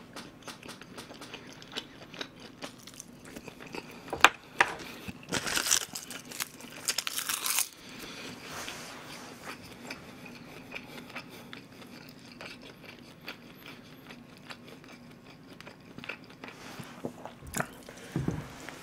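Close-miked eating sounds: a man chewing a mouthful with rice, with soft mouth clicks throughout and a run of loud crunching bites about five to eight seconds in.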